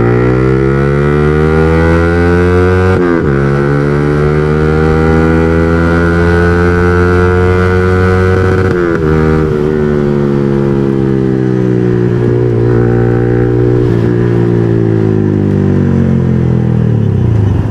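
Yamaha R15 V3's 155 cc single-cylinder engine through a loud aftermarket Akrapovic exhaust, revving up hard under acceleration with upshifts about three and nine seconds in, then easing off and winding down as the bike slows.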